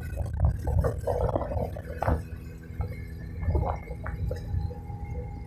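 Motorboat running on the river: a steady engine drone with a low rumble, under irregular splashing of water against the hull that is strongest in the first two seconds.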